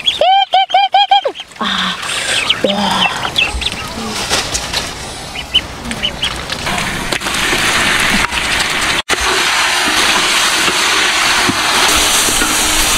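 A quick run of about six repeated rising-and-falling animal calls in the first second and a half, then a steady rushing noise that grows louder and cuts out abruptly for a moment about nine seconds in.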